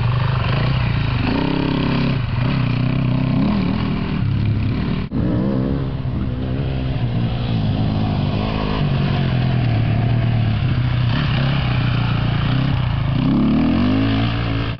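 Enduro dirt-bike engines revving hard, pitch rising and falling as the riders work the throttle through the turns. The sound breaks off sharply about five seconds in, and another bike picks up straight after.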